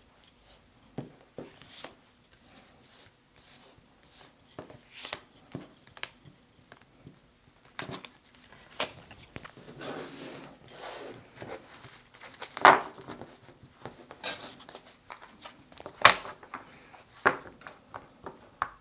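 Tarot cards being handled, shuffled and drawn: scattered soft clicks, taps and rustles, with two sharper slaps about thirteen and sixteen seconds in as cards are laid or tapped on the table.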